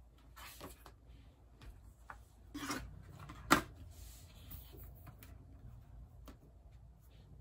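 Light knocks and rubbing as a laptop and other things are moved about and set down on a desk, with one sharp knock about three and a half seconds in as the laptop meets the desk; the laptop lid is then lifted open.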